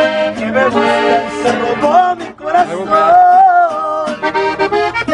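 Accordion playing a melodic instrumental run over strummed acoustic guitar in a live norteño song, with a brief break in the melody about two seconds in.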